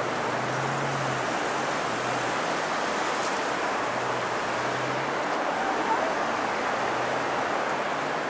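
Steady rushing of the River Dee over its rapids, with a low engine hum of passing traffic coming and going.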